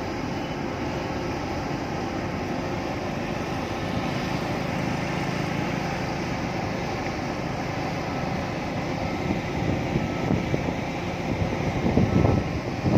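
Steady rumble of running engines, with wind buffeting the microphone near the end.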